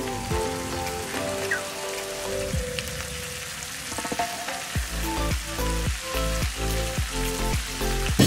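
Mushrooms, peppers and onions sizzling in a hot wok, a steady hiss under background music; about five seconds in the music's beat and heavy bass come in.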